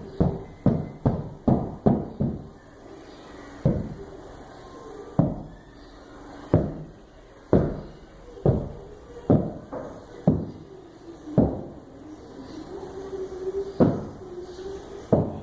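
A series of dull knocks or thumps, about half a dozen in quick succession in the first couple of seconds, then spaced roughly a second or more apart.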